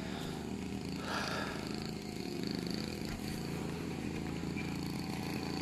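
A small engine running steadily, its pitch wavering slightly.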